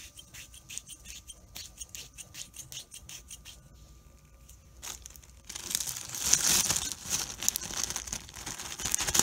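Faint small clicks and taps from a plastic MC4 inline fuse being handled, then, a little past halfway, a clear plastic bag crinkling loudly as it is picked up and handled.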